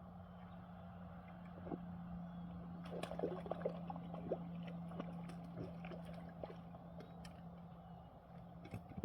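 Light water splashing and small sharp knocks, bunched in the middle seconds, over a steady low hum.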